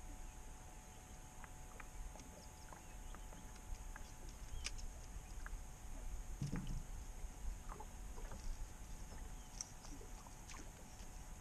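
Quiet ambience aboard a fishing boat on open water: a low steady rumble with a faint steady hum, scattered light clicks, and one dull knock on the deck about six and a half seconds in.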